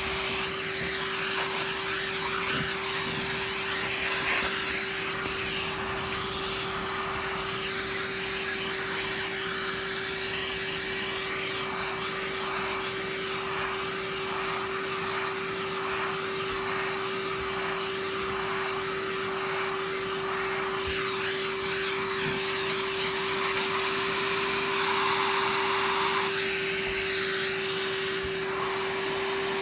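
A small electric motor running steadily: one held whine with a rush of air behind it.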